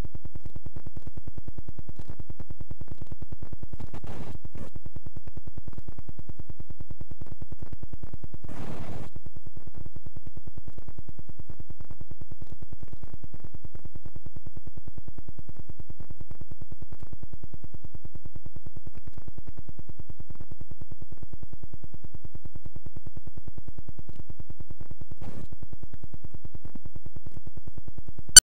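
Steady low electronic buzz, a fast even pulse, from a video deck playing past the end of the recording on a videotape. Short hissy bursts come about 4 and 9 seconds in and again near the end, and there is a sudden loud click at the very end.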